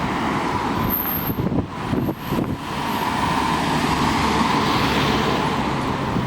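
City road traffic with strong wind rumbling on the microphone. The traffic noise swells about halfway through as a vehicle passes, loudest near the end.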